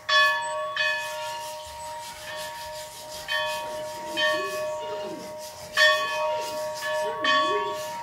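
Hand hammer striking a blacksmith's anvil about seven times at an uneven pace, with a pause after the first two blows. Each blow leaves the anvil ringing like a bell at the same clear pitch. Faint children's voices are heard underneath.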